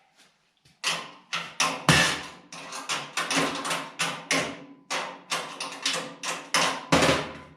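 Metal tool cart parts clanking and knocking as they are handled, a quick run of sharp knocks about three a second starting about a second in, each ringing briefly.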